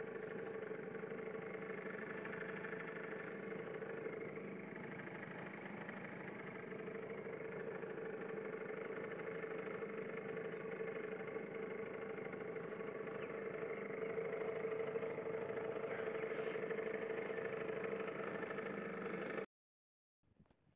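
Small 5 hp Tohatsu outboard motor running steadily, pushing a small boat along, a little louder over the last few seconds. It cuts off abruptly near the end, leaving near silence.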